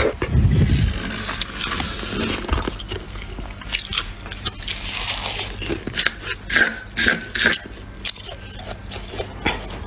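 Freezer frost being bitten and chewed close to the microphone: a low thump in the first second, then scattered crunches, with the loudest run between about six and seven and a half seconds in.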